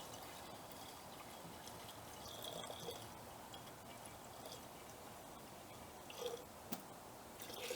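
Faint fizzing and dripping of nitric acid reacting with sterling silver in a glass beaker, with a few small ticks.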